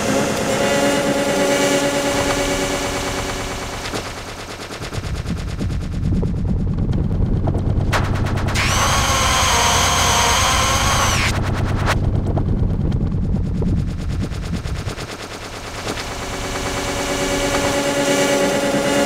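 Cartoon film soundtrack run through heavy electronic audio effects: a rapid buzzing, rattling stutter over layered pitched tones, with a brighter, shriller stretch about halfway through.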